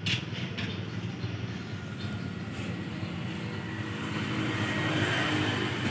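A motor or engine running steadily with a low hum, growing a little louder about five seconds in.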